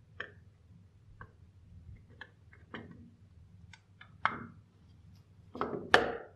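Irregular small clicks and metallic taps of a screwdriver and metal parts being handled during reassembly of a polished aluminum syringe, with a louder pair of clacks near the end, over a faint low hum.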